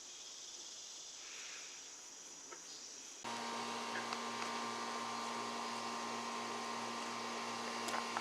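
Faint hiss, then a little over three seconds in a steady mechanical hum with a whirr cuts in abruptly and holds at an even pitch.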